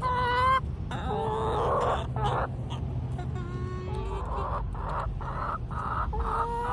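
Backyard hens calling and clucking: a string of short, flat-pitched squawks and rougher, noisier clucks, one after another.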